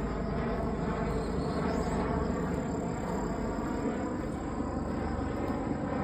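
Steady road and tyre noise of a vehicle driving over freshly repaved asphalt, an even rumble with no jolts from road seams. A thin, steady high-pitched tone sits above it, like insects calling.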